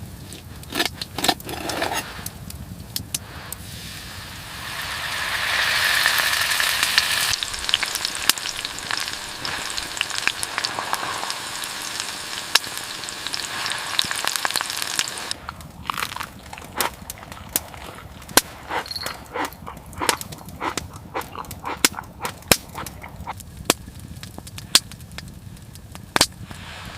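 Wood fire crackling with scattered sharp pops, with a steady sizzling hiss for several seconds in the middle that cuts off abruptly.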